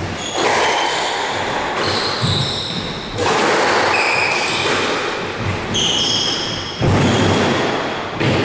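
A squash rally: the small rubber ball is struck by rackets and slams off the court walls in several sharp, echoing thuds, with short high squeaks of shoes on the wooden court floor in between.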